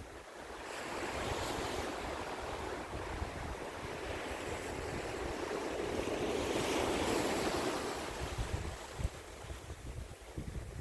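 Sea waves breaking on the shore: a wash of surf that builds over several seconds, peaks about two-thirds of the way through, then recedes. Wind buffets the microphone with a low, fluttering rumble underneath.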